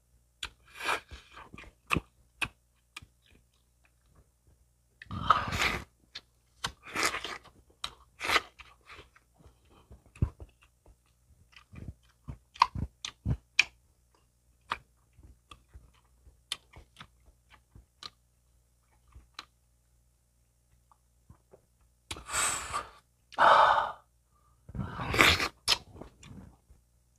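A person chewing and biting chicken up close, with many short mouth clicks and several louder, longer noisy stretches: around five to eight seconds in and again near the end.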